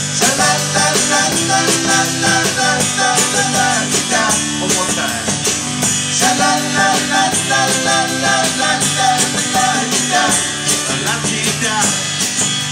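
A small rock band playing live through a Bose L1 column PA system: strummed acoustic guitar, drum kit and keyboard with a steady beat.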